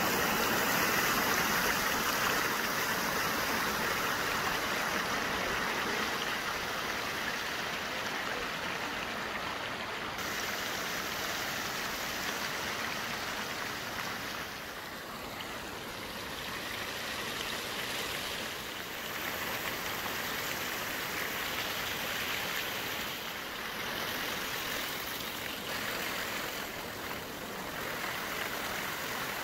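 Water swirling in a whirlpool round the Rain Oculus's large acrylic bowl and pouring down through the hole at its centre: a steady rushing of water.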